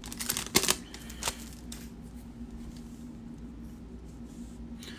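A foil trading-card pack and its cards being handled: a few sharp clicks and crinkles in the first second and a half, then only a faint steady hum.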